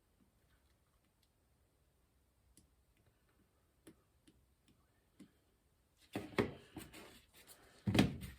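Small loose steel ball bearings from a bicycle's front fork headset clicking against one another and the bench, one small click at a time as they are counted. About six seconds in, louder clattering and handling noise takes over, with one loud knock near the end.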